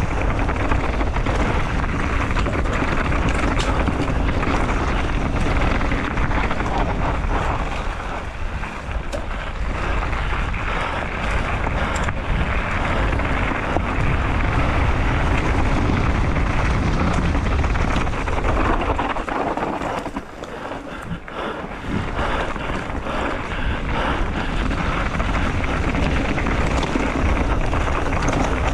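Mountain bike riding fast down a dirt singletrack: wind rushing over the camera microphone, with the tyres rolling over dirt and loose stones and the bike's chain and frame rattling in quick, irregular clicks. The noise eases briefly about twenty seconds in, then picks up again.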